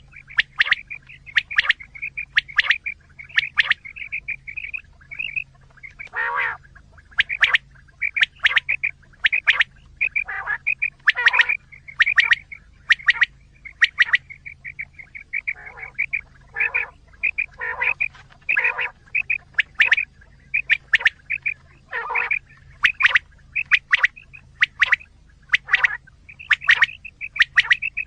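Quail calling over and over in quick, sharp notes, as used in a hunting lure call to draw quail in.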